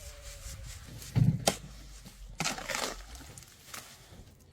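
Sand rustling and scraping as it is shaken in a dustpan to sift out the coarse grains, in irregular swishes, with a couple of knocks just over a second in.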